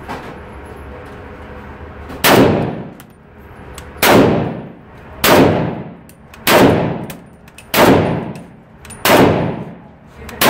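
Sturmgewehr 44 rifle in 7.92×33mm Kurz firing single shots, six of them spaced roughly a second and a half apart, starting about two seconds in. Each shot rings on in the echo of an indoor range.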